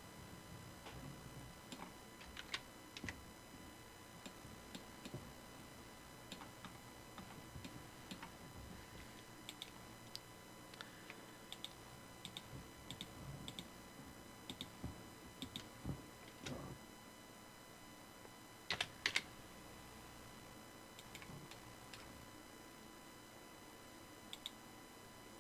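Computer keyboard keys tapped faintly in scattered strokes, with a louder pair of clicks about three-quarters of the way through.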